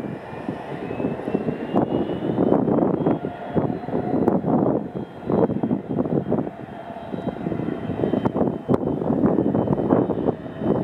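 Eurocopter EC135P2 helicopter's twin turbines and rotor heard from a distance as it hovers in to land: an uneven, surging rush of noise with a thin turbine whine that climbs in pitch over the first few seconds and then holds steady.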